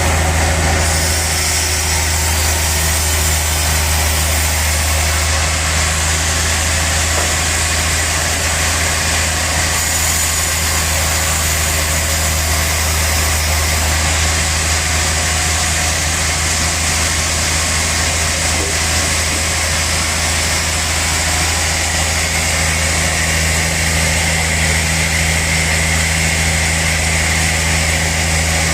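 Sawmill saw machinery running steadily: a constant low hum under an even hiss, with no change in speed.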